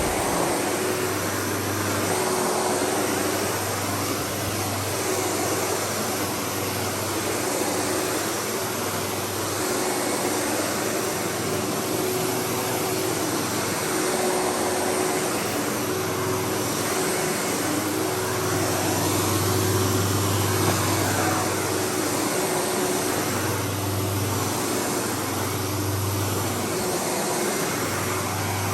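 Windsor SR15 upright vacuum running continuously on berber carpet, a steady motor tone over a rushing airflow. A low hum swells and fades every few seconds.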